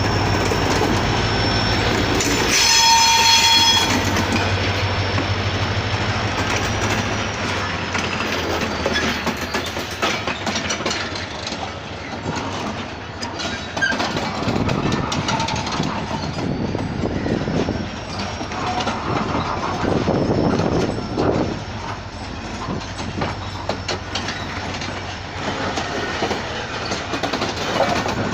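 Train pulling out of a station: the locomotive sounds its horn once, for about a second and a half, about three seconds in, over the steady hum of its engine. Then the cars rumble and clatter over the rail joints as the train moves off.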